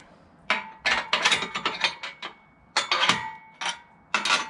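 Bolts being dropped in and fitted through a heavy aluminum guide-on bracket and the boat trailer's steel frame: several bursts of metallic clinking and rattling clicks, some ringing briefly.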